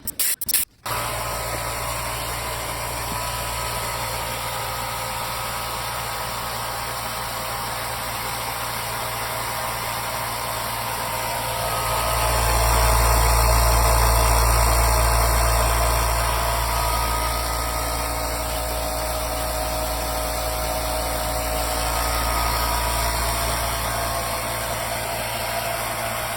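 Limodot 5-gallon oil-free air compressor starting after a few clicks and running steadily. It grows louder for a few seconds around the middle, then settles back.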